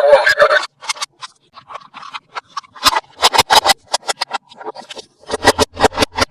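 Toy packaging and plastic toy parts being handled close to the microphone: a scraping rustle at the start, then a run of sharp plastic clicks and taps that comes in two quick bunches.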